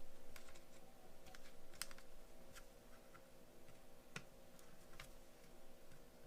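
Light, irregular clicks and taps of small hand tools and parts being handled on a repair bench, about one or two a second, over a faint steady electrical hum.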